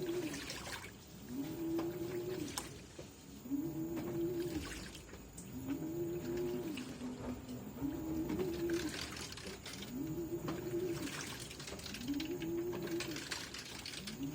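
LG 18 kg washing machine's direct-drive motor turning the heavily loaded drum back and forth on the duvet wash cycle: a whine that rises, holds and falls again about every 1.7 seconds, eight times over, with water and wet laundry sloshing in the drum between strokes.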